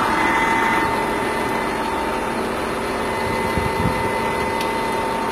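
Caterpillar 12M motor grader's diesel engine idling, heard close up beside the cab, with a steady whine held over the engine noise.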